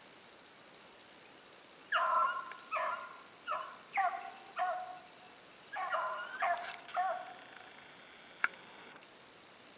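Rabbit hounds barking as they run a rabbit's trail: about eight short barks in two bunches with a brief pause between, each dropping in pitch. A single sharp click near the end.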